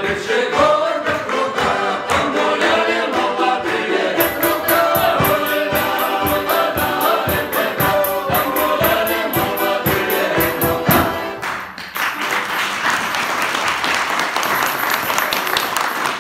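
A mixed choir of men and a woman singing a Cossack folk song, with a large bass drum keeping a steady beat and tambourine, balalaika and button accordion playing along. The song ends about twelve seconds in and the audience applauds.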